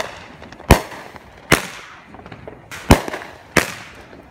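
Red Rhino Eye Candy 200 gram consumer firework cake firing its shots: sharp bangs about a second apart, each trailing off in a short echo.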